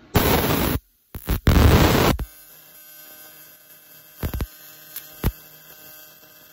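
TIG welding arc on mild steel from an AHP AlphaTIG 201X: loud harsh crackling bursts for about two seconds as the arc strikes, then a steady electric hum broken by a few sharp crackles. Sparks spit from the arc, a sign that the tungsten electrode is burning up at this setting.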